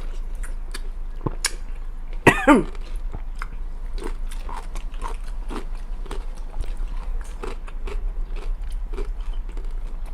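Close-up biting and chewing of a dill pickle: many small wet crunches throughout. About two seconds in there is a short, loud vocal sound that falls steeply in pitch.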